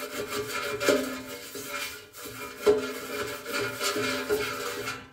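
Pastry brush scrubbing oil across the perforated non-stick basket of a Philips air fryer: repeated scratchy back-and-forth strokes, several with a short squeak, stopping near the end.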